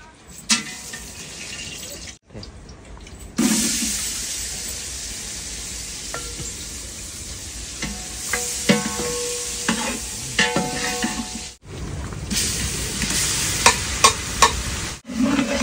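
Goat meat sizzling in a large aluminium pot, with a long metal ladle stirring and scraping, clinking against the pot's side many times in the second half.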